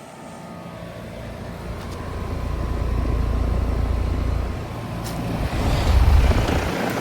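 A 3-ton Trane XR14 heat pump's outdoor unit running just after start-up, its LG scroll compressor going steadily. Under it is a low rumble that builds over the first couple of seconds, dips, and swells again near the end.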